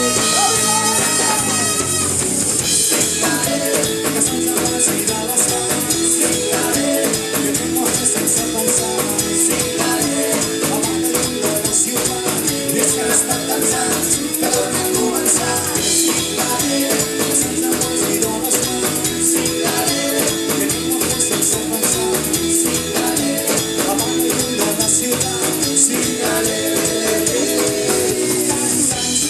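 A live ska-fusion band playing a song with drum kit, bass, guitars and brass over a steady, driving beat.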